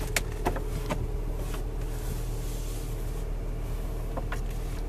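Steady low hum of the car's cabin with the car switched on, with a few faint taps and rubs as a hand moves over the leather dashboard and wood trim.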